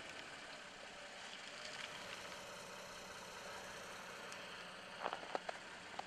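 Faint, steady hum of an idling vehicle engine, with a few light clicks about five seconds in.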